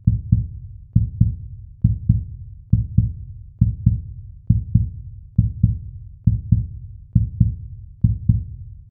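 Intro sound effect of deep heartbeat-style double thumps, a pair about every 0.9 seconds, repeating evenly.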